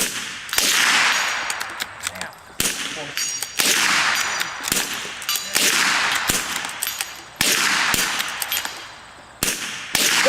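Two rifles firing in quick, uneven succession at a steel dueling tree: about a dozen shots, each trailing off over about a second. After some hits the steel plates ring.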